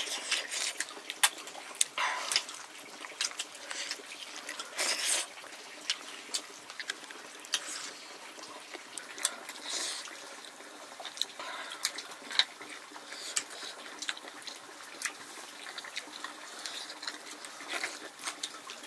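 Cooking sounds: many scattered clicks and knocks, like pots and utensils being handled, with a few short splashes of water.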